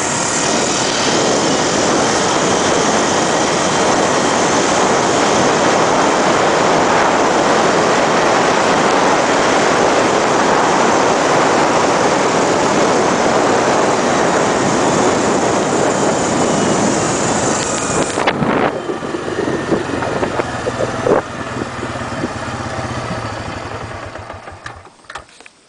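Suzuki Eiger 400 ATV's single-cylinder engine running while the quad is ridden across rough pasture, under a loud, steady rush of noise. About 18 seconds in the rush drops away and a few knocks and rattles follow. Near the end the sound falls off as the quad slows.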